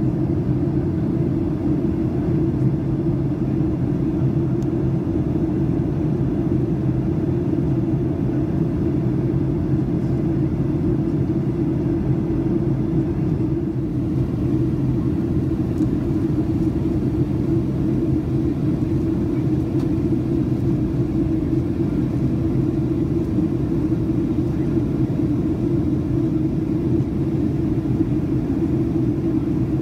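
Steady cabin drone of a jet airliner in flight, heard from inside the cabin: engine and airflow noise with a steady low hum.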